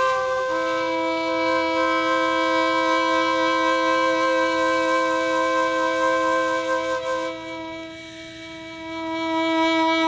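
Live chamber ensemble of saxophone, flute, violin and keyboard holding long, sustained notes in a chord, in a piece set to climate data. The chord changes about half a second in. Around seven seconds in, most of the notes fall away, leaving one low note, then the chord swells back near the end.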